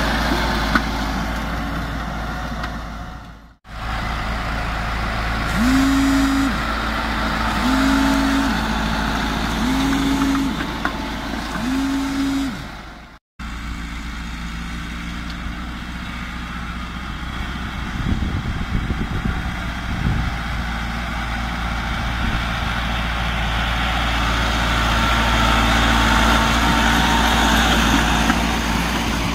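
Massey Ferguson 375 tractor (Millat build) running steadily under load as it pulls a disc harrow through the soil. The sound drops out completely for a moment twice, at about three and a half and thirteen seconds in.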